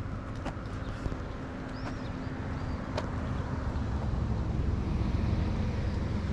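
Steady low outdoor rumble that grows louder about four seconds in, with a few faint clicks and a brief high chirp.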